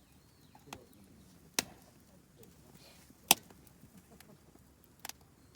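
Burning campfire wood popping: four sharp snaps at irregular intervals, the loudest a little past the middle.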